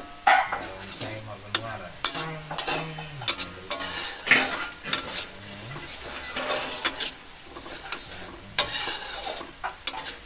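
Metal spatula scraping and stirring a ground chili-and-spice paste that sizzles in a wok, in irregular repeated strokes over the steady frying sizzle. The paste is being sautéed until fragrant.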